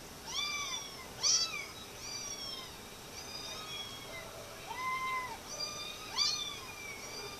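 Several kittens mewing again and again, in short high-pitched calls that rise and fall in pitch and sometimes overlap.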